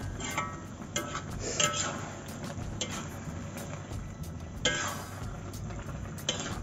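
Spatula and metal turner scraping and knocking against a metal wok as rice vermicelli is tossed and stir-fried. There are about six sharp clanks, some with a brief metallic ring, over a steady low hum.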